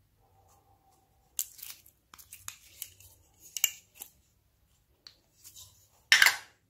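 Glossy slime being pressed and poked by hand: a run of sticky crackles and pops, with a louder burst near the end.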